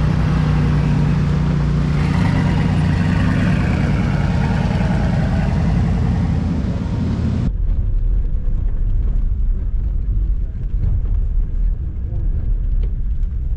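A vehicle engine running steadily close by, with a strong, even hum. About seven and a half seconds in it cuts to the duller, low rumble of a vehicle driving over sand, heard from inside the cab.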